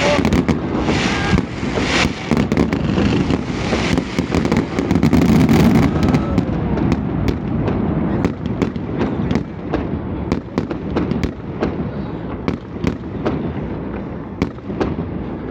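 Fireworks display: a dense run of booming aerial shells and sharp crackling. It is loudest about five seconds in, then thins to scattered crackles and fades toward the end.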